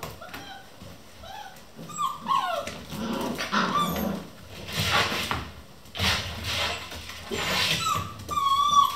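Several vizsla puppies play-fighting: growling mixed with short yips and whines that slide in pitch, coming in irregular bursts.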